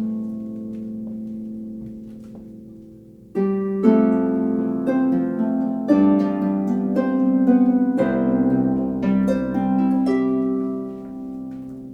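34-string Celtic harp being played: a plucked chord rings and fades over the first few seconds, then a run of plucked notes and chords starts about three seconds in and dies away near the end.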